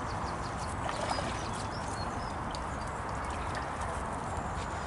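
Steady outdoor background hiss with faint, scattered high bird chirps.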